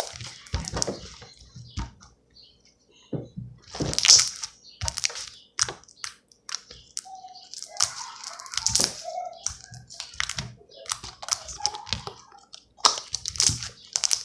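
Coffee-scented slime being squeezed and stretched by hand, making irregular wet squelches, clicks and pops. The loudest come about four seconds in and again around nine and thirteen seconds.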